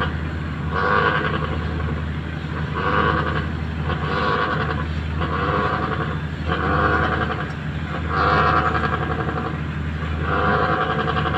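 Seven short horn blasts, about one every one and a half seconds, from a fishing boat, over the steady low drone of its diesel engine running.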